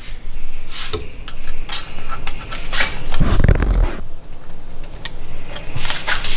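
Pliers clicking and scraping on a steel exhaust spring and the clamp of a titanium exhaust as the spring is pried onto its hook. A louder low sound lasting under a second comes a little past halfway.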